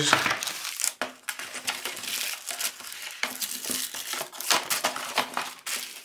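Small plastic bags of cables and accessories crinkling and rustling as they are handled and set down, with irregular crackles and light clicks.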